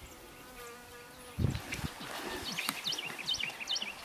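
An insect buzzing in flight, a wavering hum for a little over a second, then a sudden low thump. Birds chirp in quick short notes through the second half.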